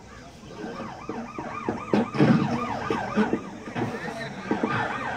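Siren sounding in a fast rising-and-falling yelp, about three cycles a second, starting about half a second in.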